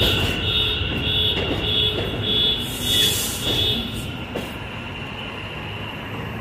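New York City subway train on the elevated BMT Jamaica Line, its wheels squealing in a pulsing high tone with scattered clicks over a low rumble. It grows quieter, and the squeal stops about four and a half seconds in, leaving a steady rumble.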